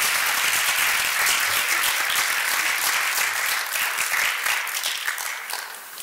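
Audience applauding, thinning out and dying down near the end.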